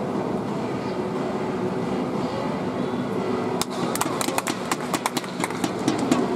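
Stadium background hum. About three and a half seconds in, a series of sharp slaps begins and speeds up, coming several times a second by the end.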